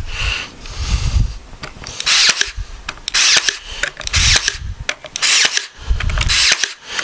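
Ryobi AirStrike cordless brad nailer firing brads into cedar boards: about five shots roughly a second apart, starting about two seconds in.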